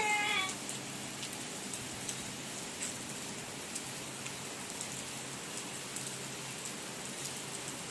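Steady rain falling on wet concrete, a constant hiss with scattered drop taps.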